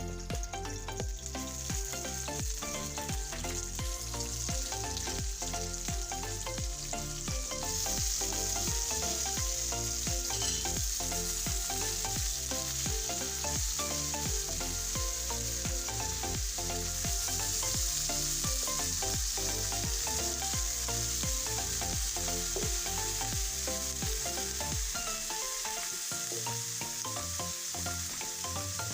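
Food sizzling in hot cooking oil in a pan, the sizzle getting louder about a third of the way in, over background music with a steady beat.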